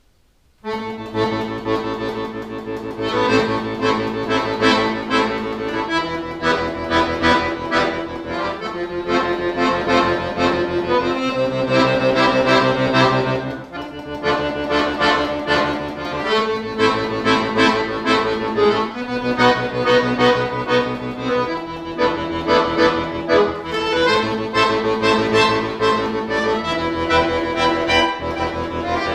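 Chromatic button accordion playing a fast piece with quick repeated treble notes over held bass notes that change every second or two. It starts from silence about half a second in.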